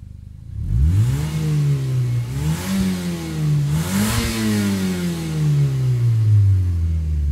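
A car engine revving up hard, its pitch climbing and dipping a few times. About four seconds in, the pitch begins one long steady fall as the engine slows.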